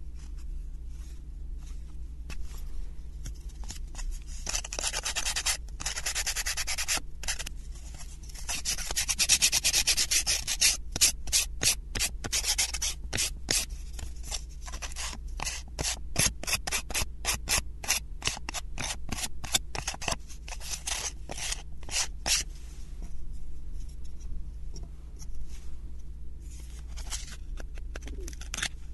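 Sandpaper rubbed back and forth over thin wooden 3D-puzzle pieces, smoothing them with quick rasping strokes. The strokes are strongest from about four seconds in to about twenty-two seconds, then give way to softer, scattered rubbing and handling of the pieces.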